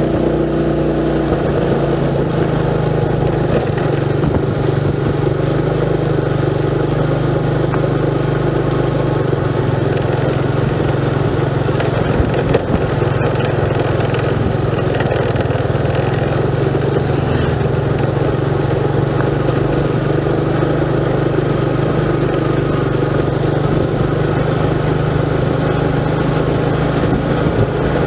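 Motorcycle engine running steadily at an even pitch.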